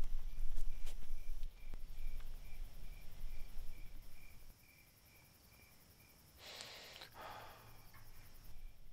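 Crickets chirping in an even rhythm, about two chirps a second, over a low rumble that fades out about halfway through. A short rustle comes near the end.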